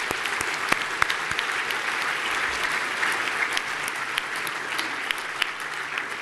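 Audience applauding: many hands clapping in a dense, steady spread of claps.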